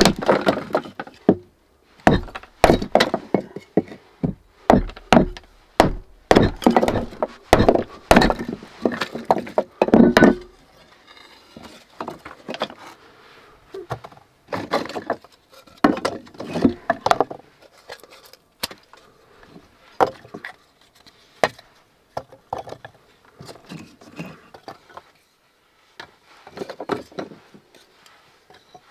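Split firewood knocking and clattering as pieces are picked up and stacked, many quick wooden knocks for about the first ten seconds. After that come sparser, quieter scrapes and knocks as the stove's iron firebox is cleared of ash and kindling is laid into it.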